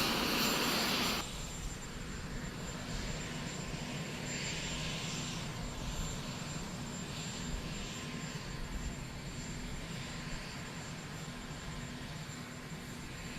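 Steady drone of aircraft engines on an airfield, with a thin high whine. The sound is louder for about the first second, then settles to an even level.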